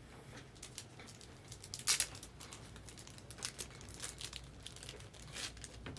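Trading cards and pack wrappers being handled: scattered crinkles and rustles, with the loudest crackle about two seconds in.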